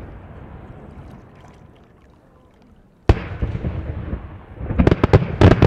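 Aerial firework shells bursting: a rumble fades away over the first few seconds, then one sharp bang about three seconds in, followed by a quick cluster of several bangs near the end.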